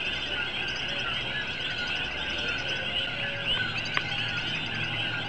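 Night chorus of many coquí frogs calling over one another in a steady dense din, with runs of higher chirping mixed in.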